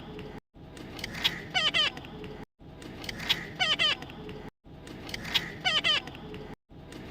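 Parrot squeaking and chirping: a short run of high, warbling calls that repeats in exactly the same form about every two seconds, each repeat cut off by a brief gap of silence, as in a looped recording.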